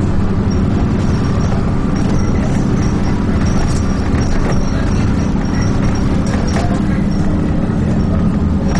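Dennis Trident 2 double-decker bus's diesel engine running steadily under way, heard from inside the bus, with occasional knocks and rattles from the body.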